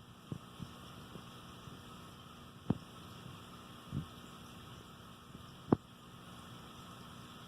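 Dog-face puffer making sounds: a few sharp clicks several seconds apart and one softer, low thump, over a steady hum.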